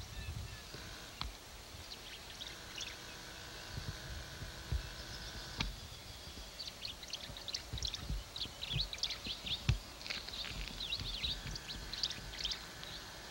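Small birds chirping over and over outdoors, with a thin steady high tone that comes and goes and occasional low thumps on the microphone.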